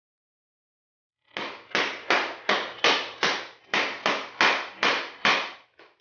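A hammer striking the top of a PVC pipe slipped over a bike fork's steerer tube, driving the crown race down onto the fork crown. About a dozen even blows, roughly two and a half a second, starting about a second in, then two lighter taps near the end.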